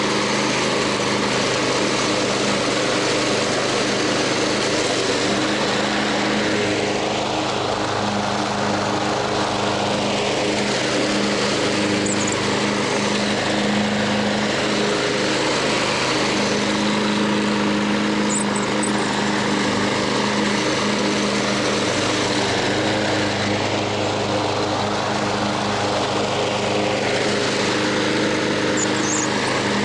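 Snapper self-propelled push mower's Briggs & Stratton Intek 6.0 single-cylinder overhead-valve engine running steadily, freshly changed oil in its crankcase.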